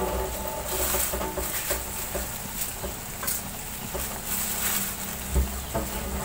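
Ground spice paste frying in a steel wok, sizzling and crackling steadily. A single knock sounds once, about five seconds in.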